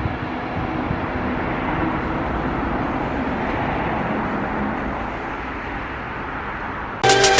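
A train running past on the railway bridge, a steady rumbling rush with a faint low hum that eases off after about five seconds. Music cuts in near the end.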